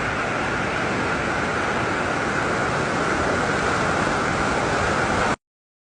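Steady rush of a large river's flowing water. It cuts off suddenly near the end.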